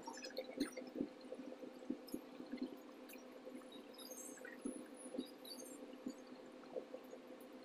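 A faint steady hum with scattered light clicks and taps.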